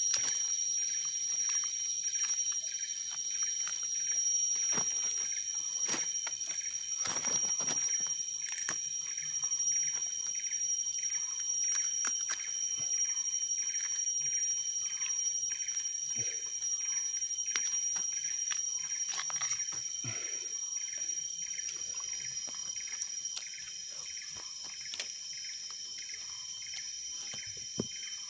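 Outdoor natural ambience: a steady high-pitched insect drone, with short chirping calls repeating about twice a second and scattered clicks and knocks.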